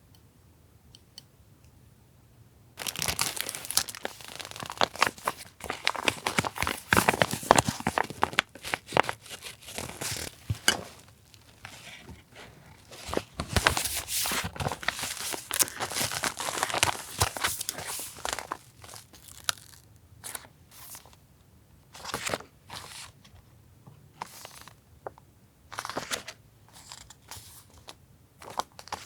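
Packaging being crinkled and torn open as a stationery product is unwrapped. It starts about three seconds in, is dense and crackly for around fifteen seconds, then thins to scattered crinkles.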